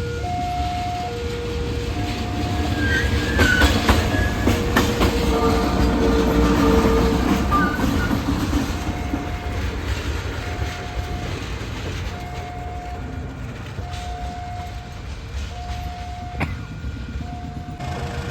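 A train passes with a rumble and wheels clacking over the rail joints, loudest between about three and eight seconds in, and its horn sounds. Behind it a two-tone level-crossing alarm alternates steadily between a lower and a higher note, each held a little under a second.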